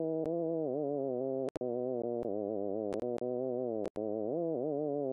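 Synthesized buzzy tone replaying the pitch contour extracted from a sung reference recording in Controllable TalkNet: held notes that slide down and back up between steps, with a few sharp clicks and two brief dropouts, stopping abruptly near the end.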